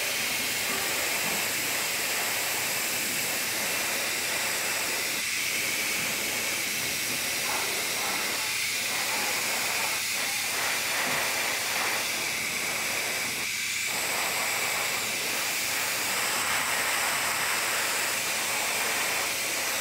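Airbrush spraying transparent black paint: a steady hiss of compressed air.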